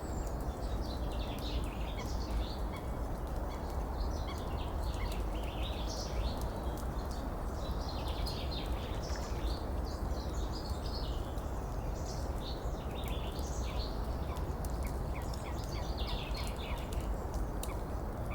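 Many small birds chirping and twittering in dense overlapping calls over a steady rush of running water.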